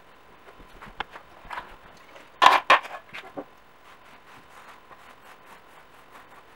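Cloth rag rubbing over a bare wooden board in short wiping strokes, with two louder scuffs about two and a half seconds in and fainter strokes after.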